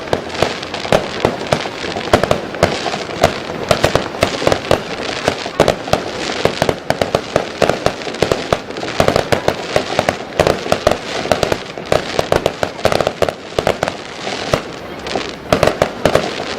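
Fireworks barrage: many shells bursting in quick succession, several sharp bangs a second overlapping without a break.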